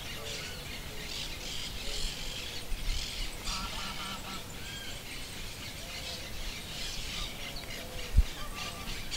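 Several birds calling: short, repeated low honking calls mixed with steady high chirping. A single brief low thump about eight seconds in.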